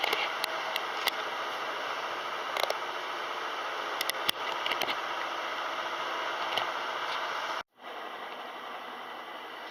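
Kelvinator K605 washing machine running steadily, with a few light clicks over the steady noise. The sound cuts out abruptly for a moment near the end and comes back a little quieter.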